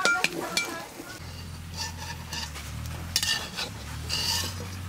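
A utensil stirring and scraping food in a cooking pan, with light sizzling. There are a few quick knocks at first, then several separate scraping strokes. A low steady hum sets in about a second in.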